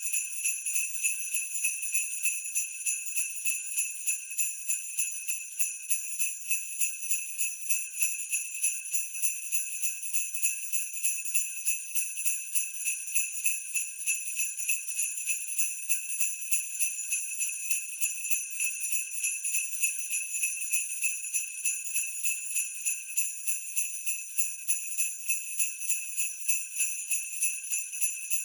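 Sleigh bells shaken in a steady rhythm at 90 beats a minute: a bright, continuous jingle with an even pulse.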